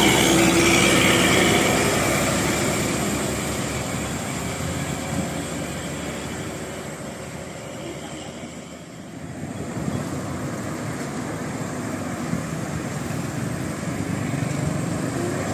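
A bus with a multi-tone telolet horn passing: the last horn notes sound in the first second or two, then its engine and road noise fade away over the next several seconds. About nine seconds in, traffic noise builds again as another vehicle approaches.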